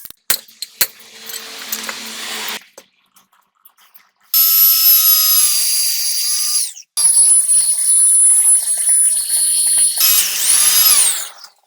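A high-pitched power tool running at speed in two long runs of a few seconds each, then a shorter run whose pitch rises and falls before it cuts off. A rushing noise comes before the first run.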